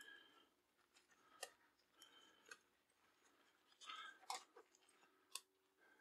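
Disposable gloves being pulled onto the hands: faint rubbery rustling and about four sharp snaps as the glove is stretched over the fingers and wrist.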